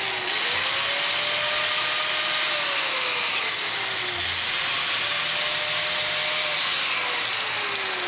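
Corded angle grinder grinding down a metal bracket held in a vise, a steady loud grinding hiss. The motor's pitch sags each time the disc is pressed into the metal and recovers in between, and falls away near the end.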